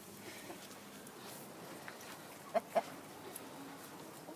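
Domestic hens clucking quietly, with two short, sharp clucks close together a little past halfway through.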